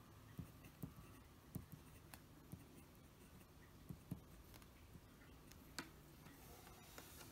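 Faint scratching and short ticks of a Parker Premier fountain pen nib writing Japanese characters on paper, a series of brief strokes with the last one a little before the end.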